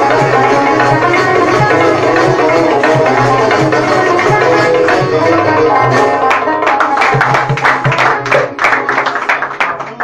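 Algerian chaabi music played on a bowl-backed lute and a banjo. About six seconds in, the dense playing breaks into separate hard strummed strokes and dies away near the end, closing the piece.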